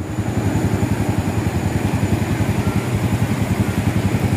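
Motorcycle engine running at low revs, a steady, even low throb.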